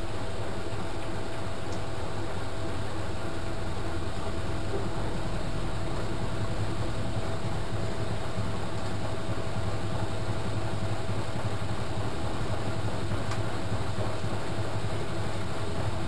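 Front-loading washing machine running, its drum turning with water and suds inside: a steady low motor hum with a faint constant whine over it.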